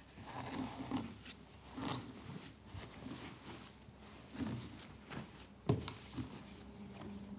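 Clothes being lifted out of a front-loading washing machine drum one by one: irregular fabric rustling and handling, with a few soft knocks, the sharpest about three-quarters of the way through.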